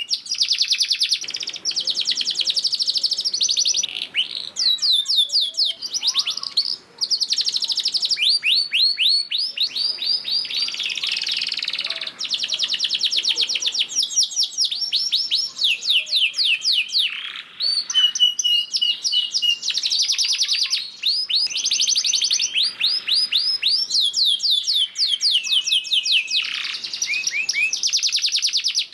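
Male domestic canary singing a long, unbroken song of fast rattling trills made of rapidly repeated rising notes, broken by a couple of runs of level piping notes in the middle and later on.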